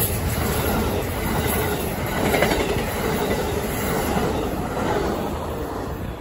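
Amtrak passenger coaches and a baggage car rolling past close by: a steady rumble and clatter of wheels on the rails, fading near the end as the rear of the train pulls away.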